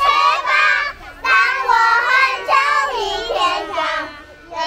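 Young children singing, high voices holding and sliding between notes, with a short break about a second in.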